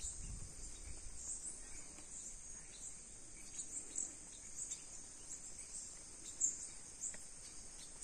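Steady, faint, high-pitched chorus of insects, with short bird chirps scattered through it.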